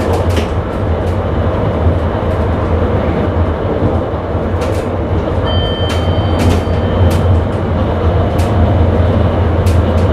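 Sprinter electric train running at speed, heard from the driver's cab: a steady low rumble and hum with irregular sharp clicks from the wheels over rail joints. A brief thin high tone sounds for about a second, around six seconds in.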